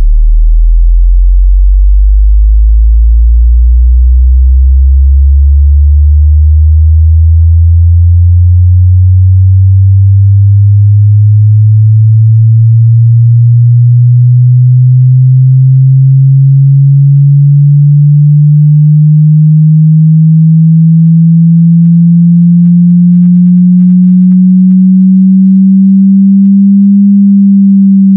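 Loud synthetic pure test tone gliding slowly and steadily upward from a deep bass hum to a low hum: a sine sweep test signal meant to make poorly built headphones buzz or rattle.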